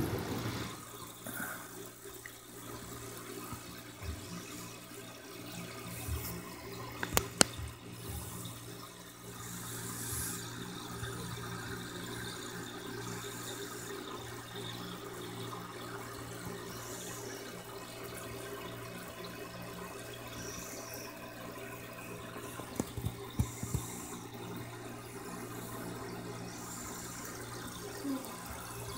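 Steady aquarium water movement, a running trickle and bubble, over a constant low electrical hum. A couple of sharp knocks come about seven seconds in and a few more around twenty-three seconds.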